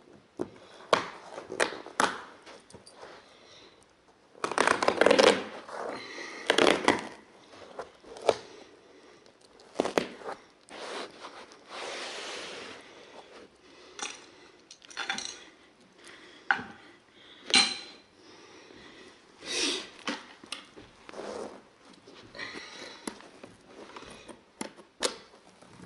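Berber carpet being worked on a stair by hand and with carpet tools: irregular rustling, scraping and clicking as the carpet is pulled back, tucked and stretched. The loudest stretch of handling comes about five seconds in, and a longer rustle of the carpet being pulled comes near the middle.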